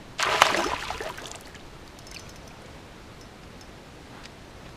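Water splashing hard for about a second, starting just after the start: a hooked smallmouth bass thrashing at the surface as it is reeled toward the canoe. Then only a faint steady hiss.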